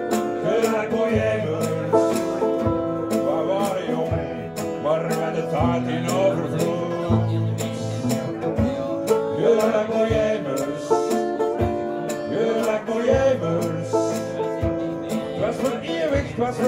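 Instrumental break in a live acoustic chanson: two acoustic guitars, one an archtop, strumming and picking a steady accompaniment, with a harmonica playing a wavering melody over them.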